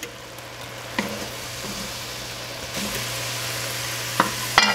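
Beef stew meat sizzling in hot oil in an enamelled cast-iron Dutch oven as it is lifted out with a wooden spoon; the sizzle is steady and grows a little louder partway through. A few sharp knocks and clicks, the loudest near the end.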